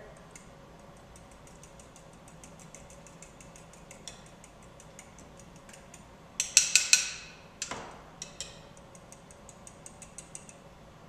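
A fork beating eggs, milk and oil in a small bowl, tapping against the sides in a rapid, faint ticking, with a few louder clinks a little past halfway.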